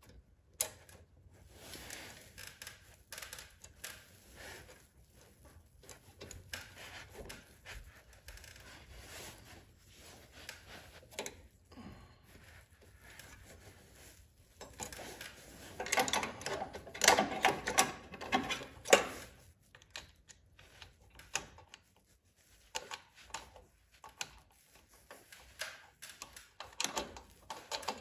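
Light metallic clicks and rattles of hand tools and parts being worked on a snowblower carburetor and its linkage, with a denser run of rapid clicking for a few seconds past the middle.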